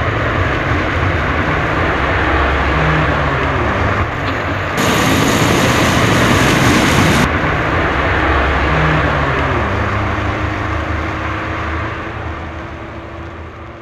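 A car driving, with steady road and engine noise; the engine pitch rises briefly twice. A louder hissing rush lasts about two seconds midway, and the noise fades toward the end.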